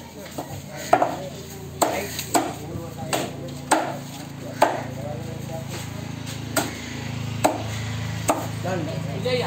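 A heavy curved knife chopping through a bluefin trevally on a thick wooden block. There are about ten sharp, irregular chops with a short pause in the middle, over a steady low background hum.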